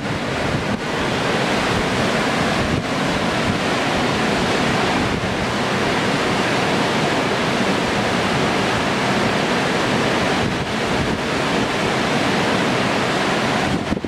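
Steady rush of heavy whitewater: a big river standing wave and the flooded rapids around it.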